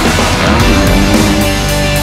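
Heavy rock music with distorted electric guitars and a steady beat.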